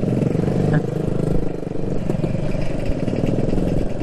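Motorcycle engine running steadily at low revs while crawling in heavy traffic, with other motorbikes and scooters running close by.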